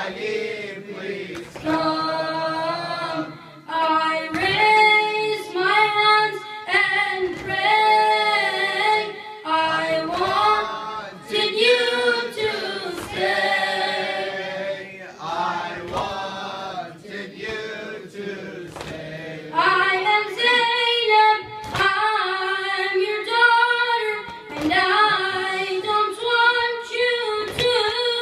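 A boy's unbroken voice singing a latmiya lament a cappella, in long held and bending notes. Sharp beats about once a second keep time under the singing.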